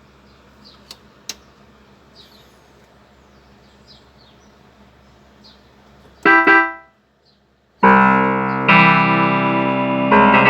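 Yamaha DX21 four-operator FM synthesizer sounding out: a low hum with two clicks, then two short plucked notes about six seconds in, and after a brief silence loud sustained chords that change twice.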